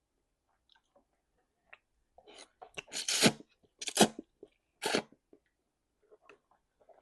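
A person sneezing three times in quick succession, about a second apart, the first after a short build-up and the loudest. Faint chewing clicks come before and after.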